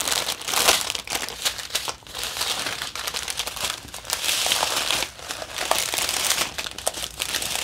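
Plastic bags of diamond-painting drills crinkling as they are handled and pulled out, a dense, irregular crackle.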